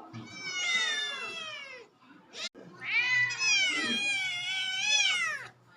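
Domestic cat meowing: two drawn-out meows, the second longer with a wavering, falling pitch, and a brief click between them.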